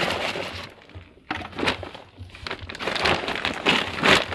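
Small stones tipped from a plastic basin into a rice sack and spread by hand: an uneven rattle and crunch of stones against the sack, dropping away briefly about a second in, then starting again suddenly in clusters of clicks.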